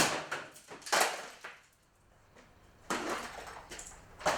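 A plastic box fan being struck hard, with sharp cracking, clattering hits: one at the very start, another about a second in, then two more about three and four seconds in.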